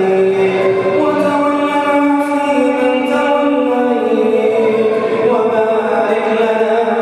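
A man's voice chanting an Arabic supplication (dua) through a microphone, drawing out long melodic notes that step down and back up in pitch without a break.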